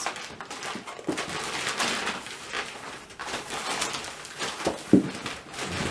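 A hard-to-open postal package being tugged and worked open by hand: irregular rustling and scraping of the packaging, with a few short strained vocal sounds near the end.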